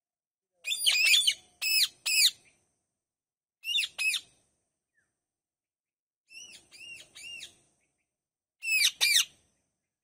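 Indian ringneck parakeets calling: short, harsh screeches in pairs and threes, each note arching up and then down in pitch. They come in about five bursts with pauses between, and the burst near the middle is quieter.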